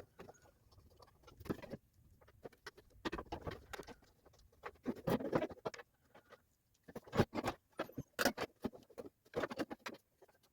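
Hands working on car body parts: irregular light clicks and knocks with bouts of scraping and rustling, as plastic and metal pieces are handled and fitted.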